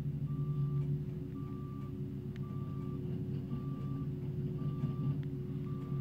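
Diesel engines of a small ride-on road roller and a JCB backhoe loader running steadily, with a reversing alarm giving short, even beeps about once a second.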